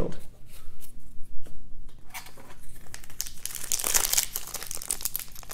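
A few sharp snaps of cards being handled, then, from about two seconds in, a foil Yu-Gi-Oh! booster pack wrapper crinkling as it is torn open.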